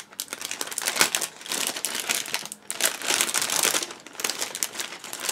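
Clear plastic bag crinkling in several bursts as grey plastic model-kit sprues are handled and sorted inside it.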